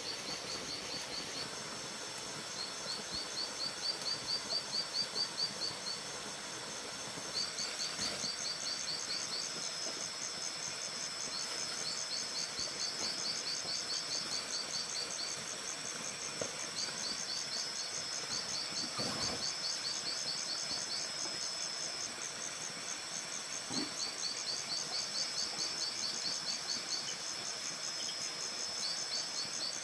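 Insects chirping in rapid trills: one high trill comes in repeated bouts of a second or two, while another, slightly higher, runs almost without a break. Under them is a steady faint hiss, with a couple of faint knocks.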